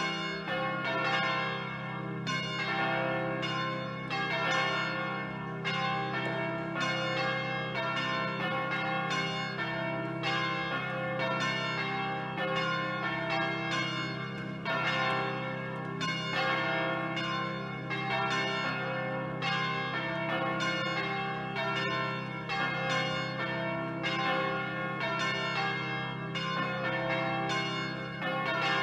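Church bells pealing: a continuous, even run of bell strikes, each ringing on with its overtones, over a steady low hum.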